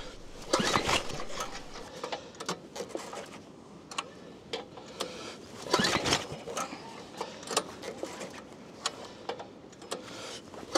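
Recoil starter of a small single-cylinder Chinese 168F diesel engine pulled twice, about five seconds apart, cranking the engine over with the decompression lever held; it does not fire in the 12 °F cold with no glow plug or intake preheat. Scattered clicks between the pulls.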